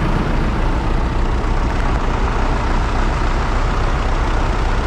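Heavy farm tractor diesel engine running steadily with a deep rumble and a constant rushing noise.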